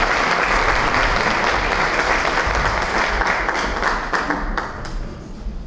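Audience applauding, dense clapping that thins out over the last second or so into a few scattered claps.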